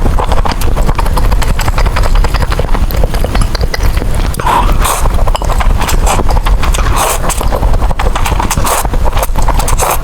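Close-miked eating sounds of noodles being chewed and slurped: a loud, dense run of quick wet clicks and smacks with no pause.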